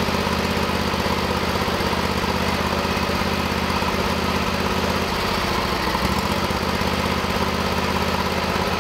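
Briggs & Stratton 20 HP V-twin Intek lawn-tractor engine running steadily. About five seconds in, its speed sags for about a second and then picks up again as one spark plug wire is pulled off during a power balance test. The drop shows that cylinder is firing, so the fault is not a single-cylinder misfire.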